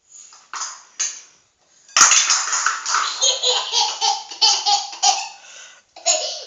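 A toddler laughing in a long run of short, high-pitched bursts, set off by a sharp click about two seconds in.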